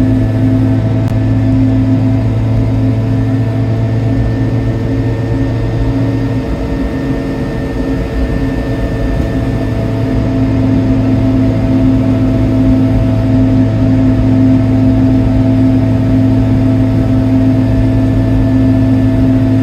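Piaggio Ape 50's small two-stroke single-cylinder engine running steadily under way at cruising speed. The engine note eases off and goes unsteady about six seconds in, then picks up and holds steady again from about ten seconds on.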